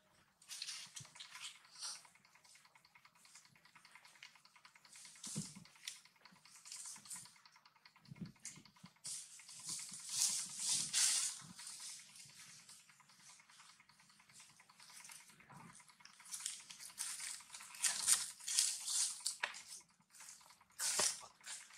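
Dry leaf litter rustling and crackling in irregular bursts as monkeys shift and crawl on it, loudest about ten seconds in and again around eighteen seconds.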